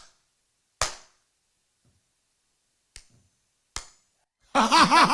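Dead silence broken by four short, sharp clicks, the first two the loudest, then a loud voice starts near the end.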